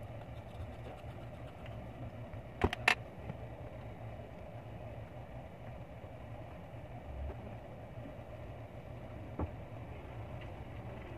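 Steady low background hum, broken by two sharp clacks close together about three seconds in and a lighter tap near the end, as a phone is handled and set down on a perforated metal work mat.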